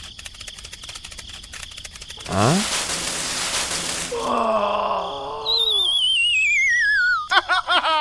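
Cartoon sound effects: a quick rising whistle with a whoosh, a squeaky character cry, then a long falling, wavering whistle that ends in a run of short bouncing boings.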